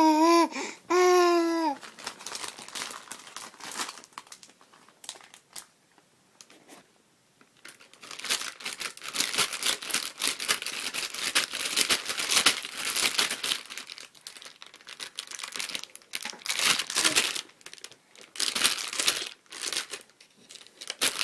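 A baby's two short high-pitched babbling squeals at the start, then crumpling and crinkling, sparse at first and then dense and continuous in uneven spells from about a third of the way in.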